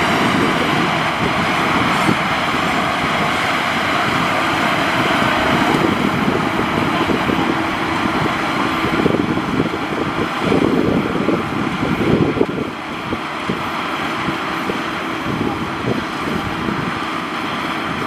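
Maxxi Bimo 102L rice combine harvester running steadily as it harvests and drives off through wet, muddy paddy, getting a little quieter about twelve seconds in. Wind buffets the microphone throughout.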